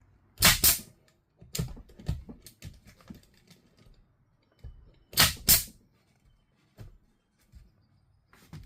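Irregular sharp knocks and clicks, with a few loud double knocks, one pair about half a second in and another about five seconds in, and fainter clicks between them.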